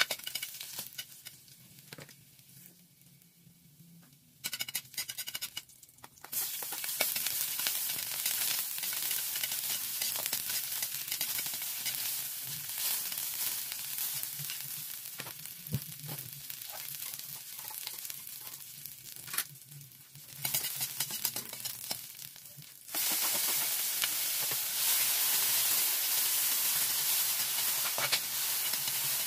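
Garlic, onion and tomato frying in oil in an aluminium wok, sizzling, with a metal utensil scraping and clinking on the pan as it is stirred. Only light scraping for the first few seconds, then a steady sizzle from about six seconds in, louder again in the last six seconds.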